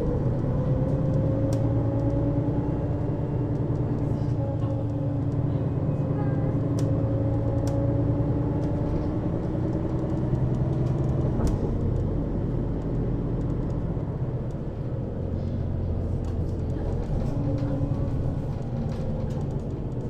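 Mercedes-Benz Citaro city bus driving, heard from inside above the second axle. The engine and ZF Ecomat automatic gearbox run under a steady low rumble, with a whine from the driveline that rises and falls gently with speed.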